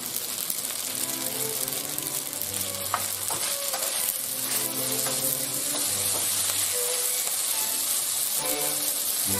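Penne sizzling in oil in a nonstick frying pan while being stirred with a wooden spoon, with a few light clicks of the spoon against the pan near the middle. Background music plays underneath.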